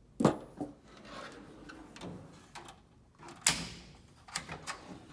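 Steel drawer of a US General 72-inch tool chest being worked, with two sharp clunks about three seconds apart and lighter metal clicks and rattles in between.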